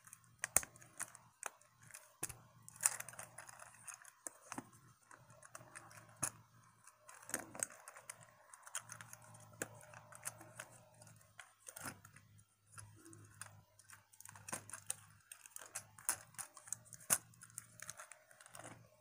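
Plastic Transformers Siege Hound action figure being transformed by hand: many small, irregular clicks and snaps of its ratcheting joints and panels being swung and pegged into place.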